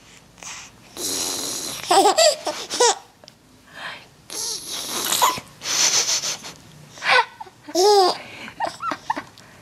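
Breathy, wheezy laughing sounds in several bouts: hissing breaths broken by short voiced laughs. This is the funny noise a child makes and his mother imitates back to him.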